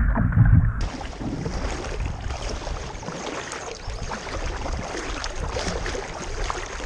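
Double-bladed kayak paddle dipping and splashing in creek water, over a steady wash of water. A loud low rumble fills the first second, then stops abruptly.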